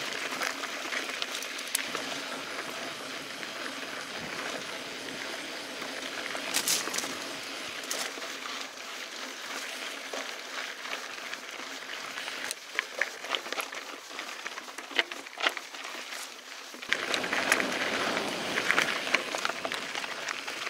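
Mountain bike rolling along a dirt trail: a steady rushing noise of tyres and air, with sharp clicks and rattles from the bike jolting over rocks, most of them in the second half. The noise grows louder near the end.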